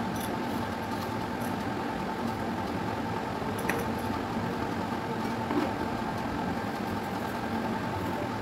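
Steady mechanical hum of a motor or fan running, with a few faint clicks from peeling and cutting an apple.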